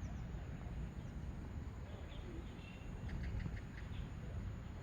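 Outdoor background: a steady low rumble with faint bird chirps, a quick run of four short chirps about three seconds in.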